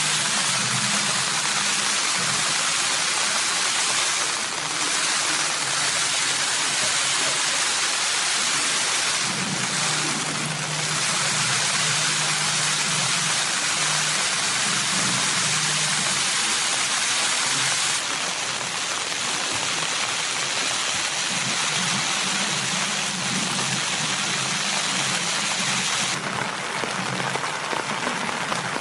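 Steady rain falling, a dense even hiss that gets a little quieter about two-thirds of the way through and again near the end.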